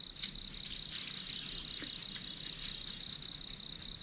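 Crickets chirring steadily at one high pitch, with faint ticks a few times a second.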